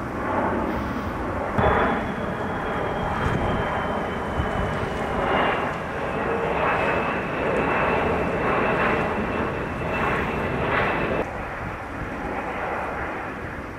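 Boeing 747-400's four Rolls-Royce RB211 turbofans passing low overhead on landing approach: a steady jet rumble with a high fan whine that comes in about two seconds in and slides down in pitch as the airliner goes by.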